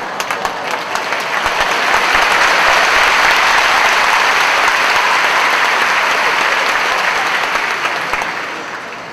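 Live theatre audience applauding: the clapping swells about two seconds in, holds, and dies away near the end.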